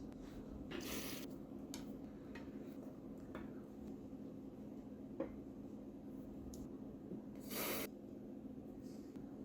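Quiet handling sounds of small-scale woodcraft work: two short scratchy rubbing sounds, about a second in and again near the end, and a single sharp click around the middle, over a steady low hum.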